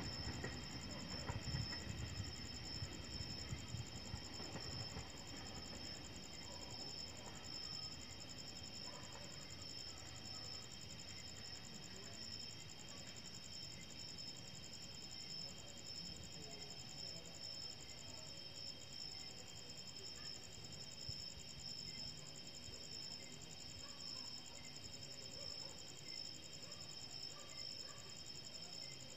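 Steady night chorus of crickets trilling, with a faint low rumble dying away over the first few seconds.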